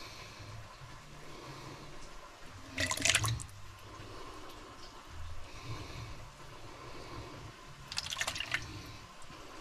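Stew broth splashing as a ladle scoops it and pours it back over the vegetables in the pot, twice, each splash brief.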